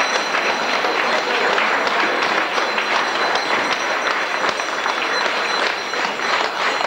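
Audience applauding steadily: many hands clapping.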